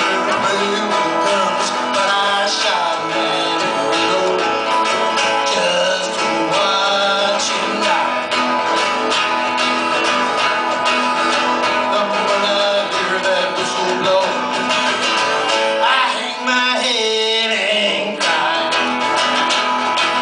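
Live acoustic band: two strummed acoustic guitars with a harmonica playing over them, bending notes up and down near the end.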